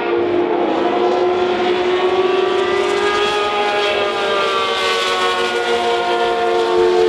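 1981 Ligier JS17 Formula 1 car's Matra V12 engine running at high revs as the car drives past, a loud, high-pitched note that glides slowly up in the middle and back down toward the end.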